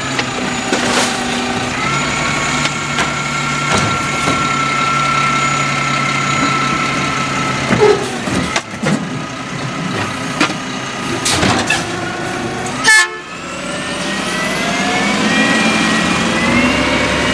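Autocar automated side-loader garbage truck working a cart: the engine runs with a steady hydraulic whine while the arm dumps the cart, and clanks and knocks come as the cart is lowered and set down. A sharp release sound comes about thirteen seconds in, then the engine's pitch rises steadily as the truck pulls away.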